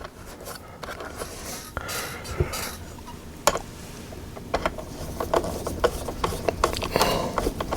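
Small screws being started with a screwdriver into a plastic touch-screen housing: some handling rustle and a single click, then a run of quick sharp clicks in the second half.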